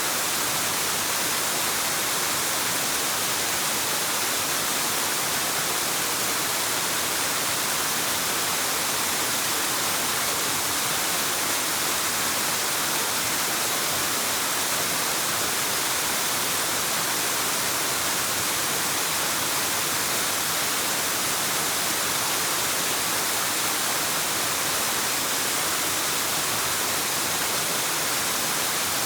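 Waterfall rushing steadily, an even hiss-like roar that never changes.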